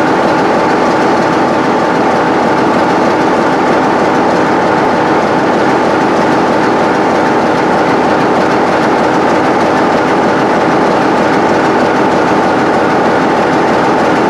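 Class 47 diesel locomotive's Sulzer engine idling steadily close by, an even, unchanging mechanical drone.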